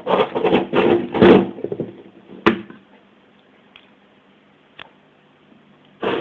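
Loud rustling and knocking for the first two seconds, a single sharp click, then the faint steady buzz hum of the homemade EL84 tube amplifier's transformer as its tubes warm up.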